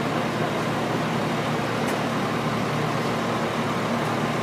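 Diesel pickup truck on a chassis dyno, its engine running steadily with no rise in revs.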